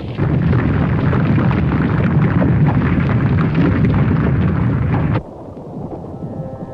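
Cartoon explosion sound effect: a loud, heavy rumbling blast for about five seconds that cuts off suddenly, with music starting softly near the end.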